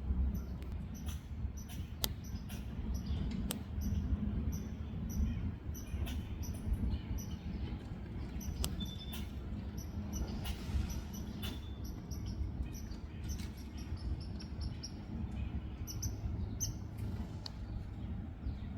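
Backyard ambience: a steady low rumble with many quick, high-pitched chirps and a few sharp clicks.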